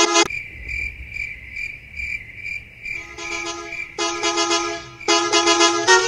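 Edited Volvo bus horn sound effect, night version: crickets chirp about twice a second over a low rumble, then from about halfway the multi-tone bus horn toots, quiet at first and then in two louder blasts.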